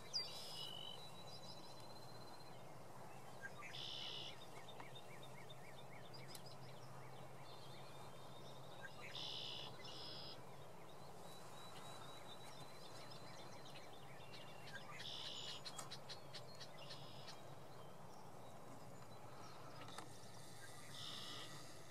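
Outdoor spring woodland-edge ambience: small birds singing and calling, with a short high call repeated every five or six seconds and thin whistled notes between, over a faint steady low hum.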